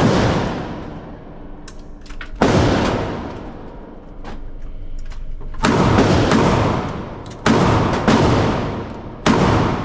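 Four gunshots at uneven intervals, each with a long echo that fades slowly in the range.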